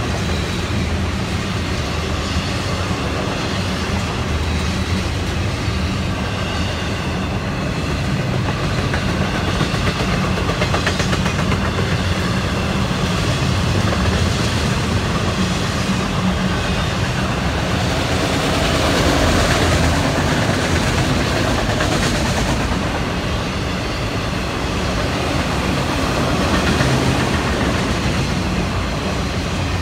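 Freight train cars rolling past steadily, first double-stack container well cars and then enclosed autorack cars, their steel wheels running on the rails in a continuous noise.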